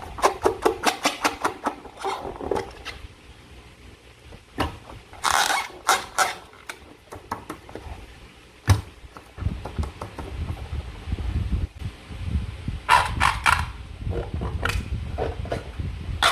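Slime and rubber balloons being handled close to the microphone: a quick run of sticky clicks at first, a few squelchy bursts, one sharp snap just before the middle, then a low rubbing handling noise.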